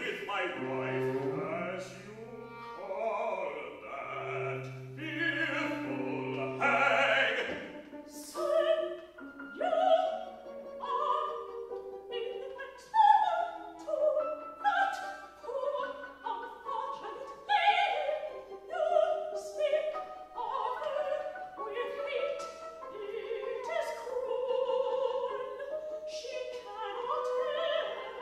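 Chamber opera sung live with an accompaniment of bowed strings and piano. Two long, low cello notes are held in the first seven seconds or so, then a busy run of short sung and played notes follows.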